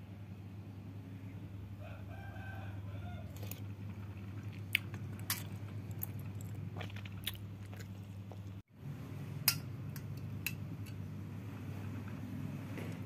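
Metal spoon and chopsticks clinking now and then against a plate during eating, over a steady low hum. A rooster crows faintly about two seconds in.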